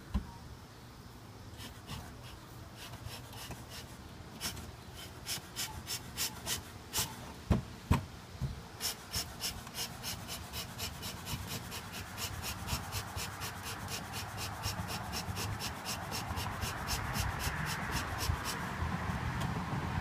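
A beekeeper's bellows smoker being pumped to get its fuel smoking: short puffs of air, uneven at first, then a fast steady run of about four puffs a second in the second half. Two hard knocks come about halfway through.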